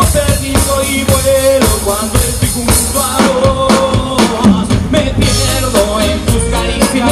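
Live Latin rock band playing, with the drum kit keeping a steady beat under held melodic notes.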